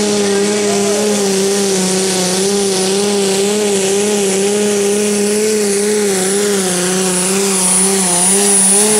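Minneapolis-Moline Pro Stock pulling tractor's turbocharged diesel engine running flat out under load as it drags a weight-transfer sled, its pitch wobbling slightly. A high turbo whine rides over the engine note and grows louder near the end.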